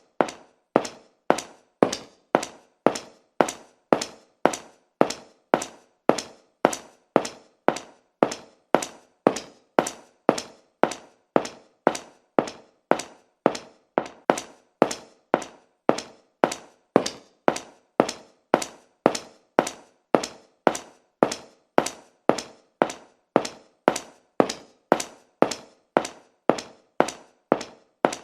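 Footsteps of a person walking at a steady, even pace, about two steps a second, each step a sharp tap.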